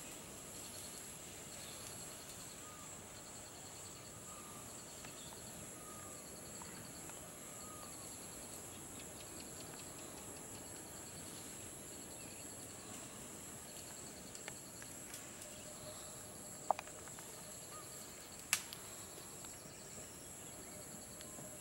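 Faint, steady chorus of insects in dry forest scrub: a continuous high buzz with a rapidly pulsed chirping beneath it, and a few short bird calls in the first half. Two or three sharp snaps or clicks come in the last few seconds.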